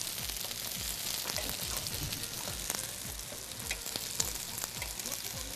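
Curry-sauced chicken wings sizzling on a grill plate, a steady frying hiss with small crackles throughout.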